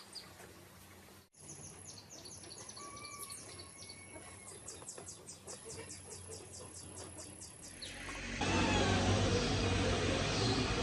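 Faint outdoor background with insects chirping in a quick regular series and a thin high steady insect buzz. About eight seconds in, a much louder motor starts running with a steady low hum and continues.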